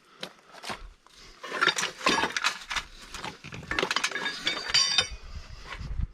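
Clattering and clinking of hard items, metal among them, being handled and moved about, densest from about a second and a half to five seconds in.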